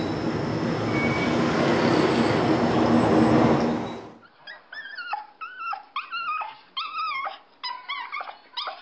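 For the first four seconds, a steady rushing noise of street traffic. It then cuts off suddenly and a small dog whines in a quick series of short, high calls, about two to three a second, each bending up and down in pitch.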